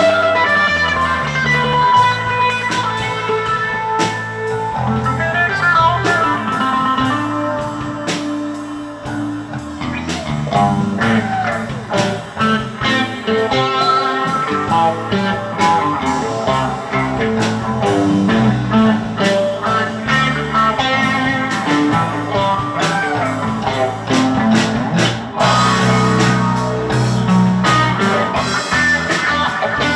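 Live rock band of electric guitars and drum kit playing an instrumental jam, with bluesy lead guitar lines over steady drum hits. Near the end the sound thickens with heavier low notes.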